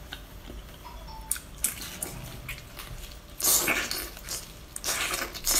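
Wet slurping and squelching mouth sounds from biting and sucking on a sauce-covered octopus, in short bursts, the loudest about three and a half seconds in.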